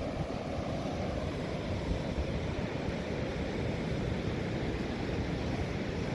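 Ocean surf washing steadily onto the beach, with wind buffeting the microphone in a ragged low rumble.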